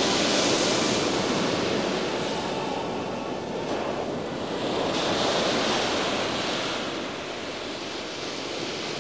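Rushing sound of surf, swelling again about five seconds in and sinking toward the end.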